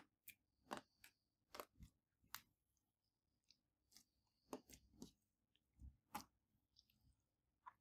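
Clear slime being handled and pressed, giving soft, scattered clicks and small pops, about a dozen in all, spaced irregularly.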